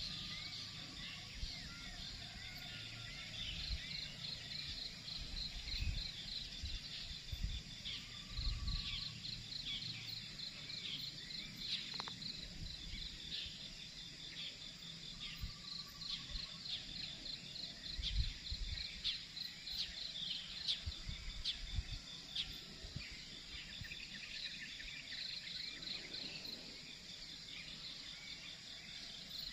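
Insects chirring steadily in a high, pulsing band, with scattered bird chirps and a few short whistled notes. Several low rumbles come and go through it.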